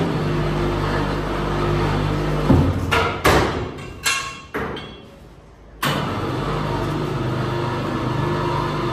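A handheld powered skinning tool's motor running with a steady hum, with a few sharp knocks around three seconds in. It dies away into a short lull and starts again abruptly about six seconds in.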